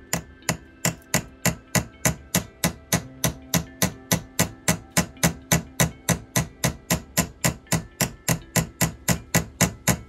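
Small hammer tapping a brass pin set in a thin aluminium (Alox) knife scale resting on a wooden block, about three quick, even strikes a second, peening the pin over to rivet it in place.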